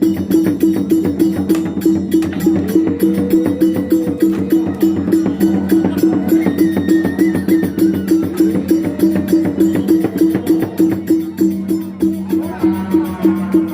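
Traditional Sasak percussion ensemble playing the peresean fight music: a steady, fast beat of about three strokes a second, with clashing cymbals over sustained ringing tones.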